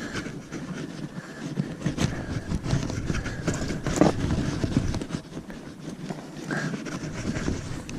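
Horse walking under its rider: a steady run of hoof falls and small knocks and clatter.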